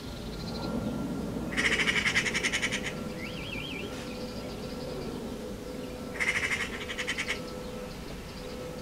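Eurasian magpie giving its harsh chattering rattle, a fast run of about ten 'chak' notes a second, in two bursts of about a second each, the second some four and a half seconds after the first; the chatter is the magpie's alarm and aggression call.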